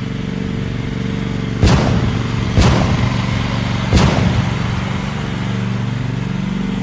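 An engine running steadily, with three sharp bangs over it, the first about a second and a half in and the others about one and one and a half seconds after.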